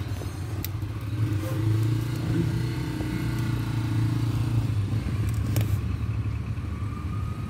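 A steady low mechanical hum, with two light clicks, one under a second in and one about five and a half seconds in.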